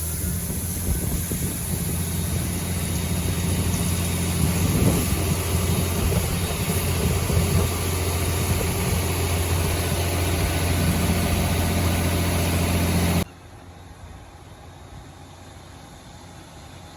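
A heavy farm vehicle's engine running steadily with a deep hum. It cuts off abruptly about 13 seconds in, leaving a quieter, steady engine hum.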